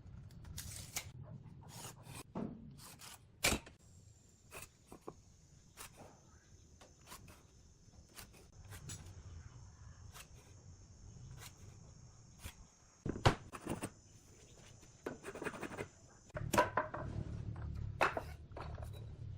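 Scattered sharp taps and knocks of wood and hand tools being handled, the loudest about three and a half seconds in and about thirteen seconds in, with a run of knocks near the end. A steady high-pitched whine runs from about four seconds in to about sixteen seconds in.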